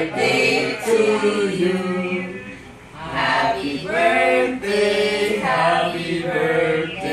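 A small group of men and women singing a birthday song together, unaccompanied, in long held notes.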